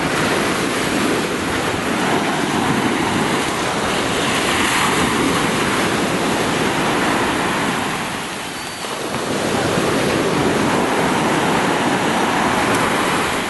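Sea surf washing onto the beach in a steady rush. It eases for a moment about two-thirds of the way through and then builds again.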